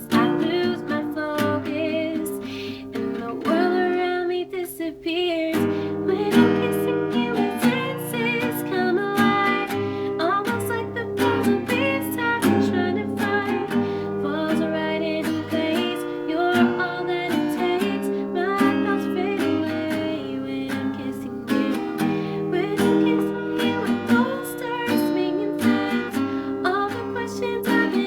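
A woman singing a song over strummed acoustic guitar music.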